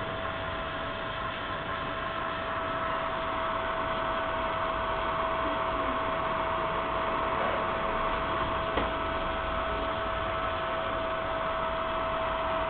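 Powered-up Mitsubishi MDS-D-SVJ3-35 servo drive on a test bench giving off a steady electrical hum with a constant whine and a rushing noise that grows a little louder about three seconds in. A single faint click comes near the end.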